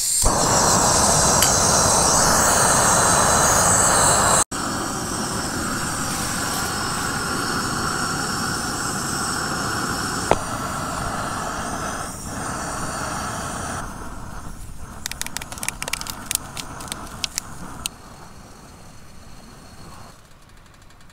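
Gas canister camping stove burning with a steady hiss under a pot of water coming to the boil. A run of sharp clicks comes in toward the end, and the hiss drops away soon after.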